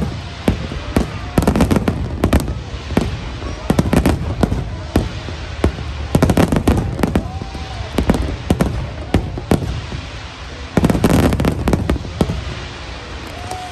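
Fireworks display: aerial shells bursting in rapid, overlapping bangs over a steady low rumble, with dense volleys about one and a half, six and eleven seconds in.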